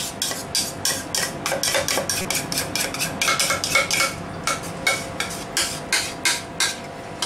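Metal utensil rapidly tapping and scraping inside a plastic mixing bowl, about four quick knocks a second, to get the last of a thick creamy sauce out.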